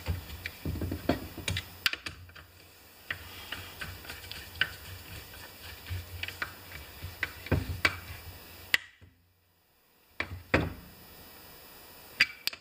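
Irregular small clicks and taps of a screwdriver and metal parts being worked by hand in an old Homelite chainsaw's chassis around the carburetor. The sound drops out briefly about nine seconds in.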